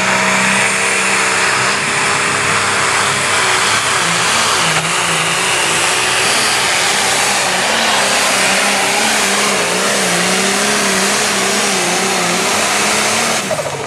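Turbocharged diesel engine of a light pro stock pulling tractor running flat out under heavy load as it drags a weight-transfer sled, its pitch wavering up and down. Near the end the engine drops off suddenly.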